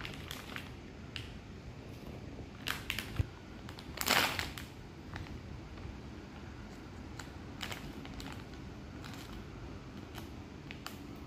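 Plastic candy bag crinkling and rustling as it is handled and opened, in scattered short crackles and clicks, with one louder crinkle about four seconds in.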